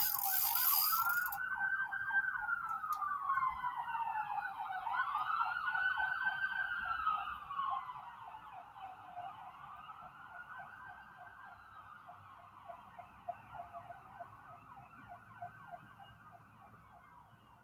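Ambulance siren wailing in slow rising and falling sweeps, one every four seconds or so, fading away over the second half as it moves off.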